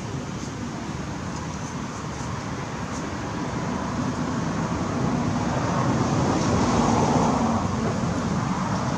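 Steady road-traffic rumble that swells to a peak about two thirds of the way through as a vehicle passes, then eases off.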